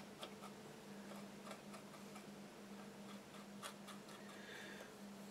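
Faint, irregular small ticks of a paintbrush working over a plastic model's surface, over a low steady hum.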